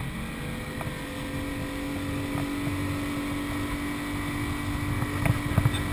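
Motorboat engine running steadily at speed after a rise in pitch, over wind and water noise, with a few short knocks near the end.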